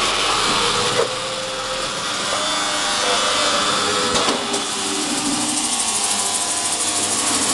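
Lely Astronaut 4 robotic milking machine working as its arm moves the teat cups under the cow: a steady mechanical hiss with faint tones beneath it, and a sharp click about a second in and another about four seconds in.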